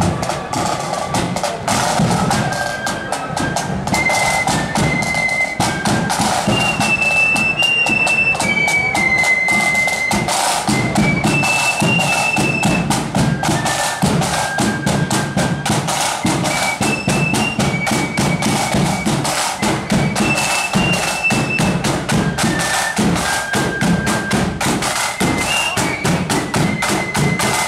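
Marching flute band playing a tune: a high flute melody over snare drums and a bass drum beating in march time.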